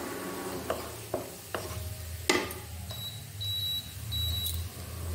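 A spatula knocks four times against a nonstick wok while chopped garlic fries in oil, the last knock the loudest, over a low hum. Then an electronic cooktop beeps three times in quick succession.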